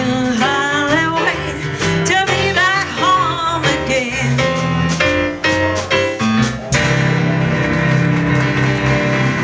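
Live boogie-woogie blues: stage piano, upright bass and a woman singing with gliding, wavering notes, settling into a held final chord about seven seconds in.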